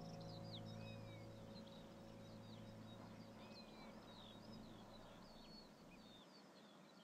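Faint birdsong: many short chirps and whistles from small birds, over a low hum that fades out about six seconds in.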